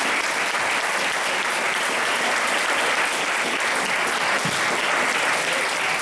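A crowd applauding, a dense and steady clapping.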